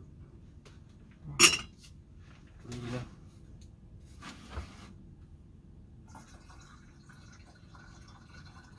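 A few sharp clunks of plastic containers being handled and set down, the loudest about one and a half seconds in, then from about six seconds in water pouring into a plastic watering can.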